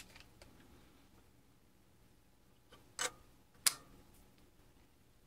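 Two sharp clicks less than a second apart, about three seconds in, as small parts are handled on a workbench; otherwise the room is quiet.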